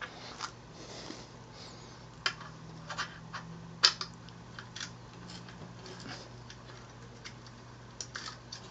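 Irregular small metallic clicks and taps of a bolt being worked by hand into a bicycle's shock mount, a dozen or so scattered sharp ticks, over a low steady hum.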